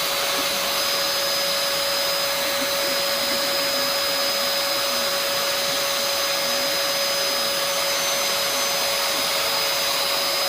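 Vacuum cleaner motor running steadily and blowing air, a continuous rushing noise with a steady whine.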